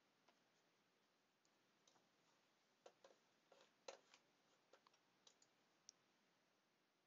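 Near silence broken by faint, irregular clicks from computer input at a drawing desk, most of them between about three and six seconds in.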